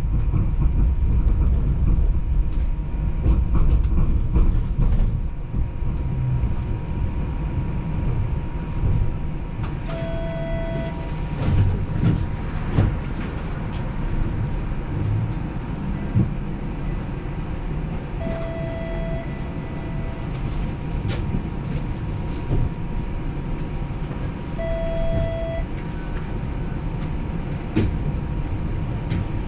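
Streetcar running on its rails: a steady low rumble with scattered clicks and knocks. Three short electronic beeps sound about ten, eighteen and twenty-five seconds in.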